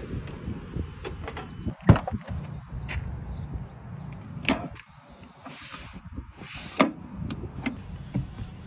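Car door handling: a few sharp clunks and latch clicks, the loudest about two seconds in and others past four seconds and near seven, with a couple of short swishes between them, over a steady low rumble.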